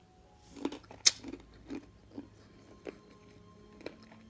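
A person biting into a baked empanadilla and chewing it. There is a sharp crunch about a second in, then soft chewing sounds roughly every half second.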